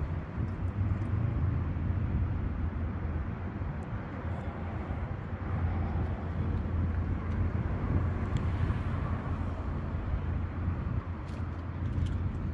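Steady low outdoor background rumble in an open parking lot, with a few faint clicks.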